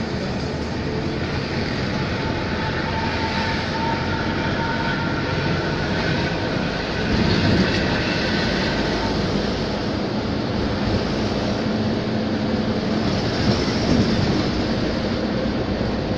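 Steady rumble of a vehicle driving along a highway, engine and road noise together, with brief louder swells about halfway through and again near the end.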